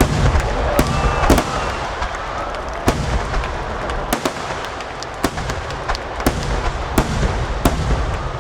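Aerial fireworks shells bursting: about a dozen sharp bangs at irregular intervals over a continuous low rumble of booms echoing.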